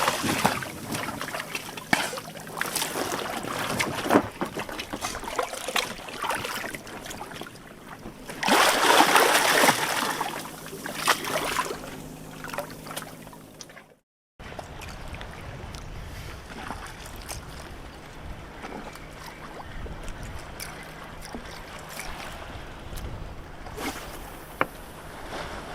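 Water sloshing and splashing around a small boat, with scattered knocks and wind noise. After a sudden cut about halfway through, a steadier, quieter low rumble follows.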